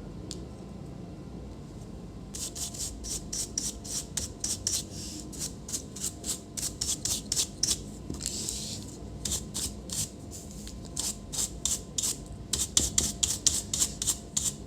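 A brush scrubbing dust out of an opened laptop's insides in quick repeated strokes, about three to four a second, starting about two seconds in, with a stretch of continuous rubbing partway through.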